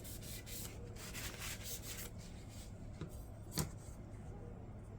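Paper towel rubbing over the parts of a disassembled folding knife as they are wiped clean: soft, faint scuffing strokes, with one sharper tap about three and a half seconds in.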